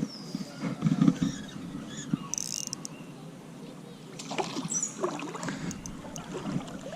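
River water splashing and sloshing in irregular bursts while a hooked smallmouth bass is fought on the line.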